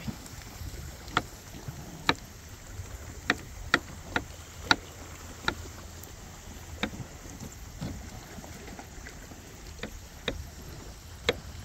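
Knife chopping on a wooden cutting board: sharp, irregular knocks, about a dozen, spaced well under a second to a couple of seconds apart, over a low steady background rumble.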